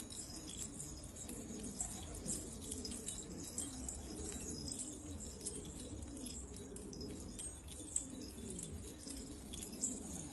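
Domestic pigeons cooing, several low calls overlapping and repeating, with scattered small high ticks and chirps.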